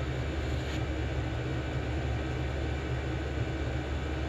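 Steady low background hum, with faint small handling sounds as a small carburetor is turned over and fitted by hand.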